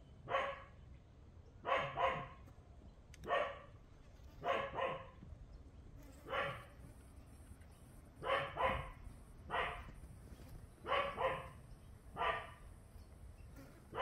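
A dog barking repeatedly, some single barks and some quick doubles, about one every second or so.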